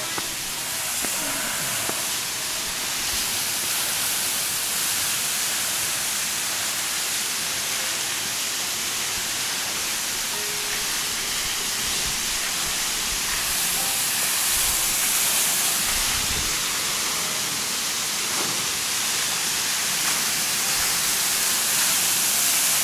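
Mountain waterfall's steady rushing hiss, growing a little louder toward the end.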